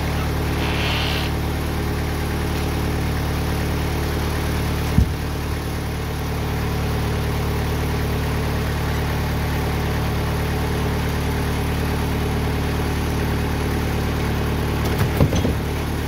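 TimberKing 2020 portable sawmill's engine running steadily at idle, not cutting. A single sharp knock comes about five seconds in, and a short cluster of knocks and thuds comes near the end.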